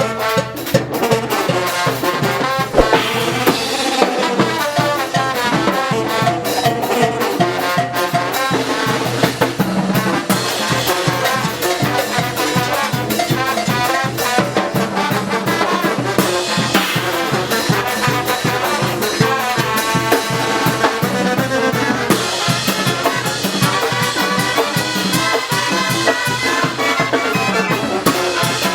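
Live Oaxacan brass band playing a fast, steady muerteada carnival rhythm, with trumpets and trombones over a driving drum beat.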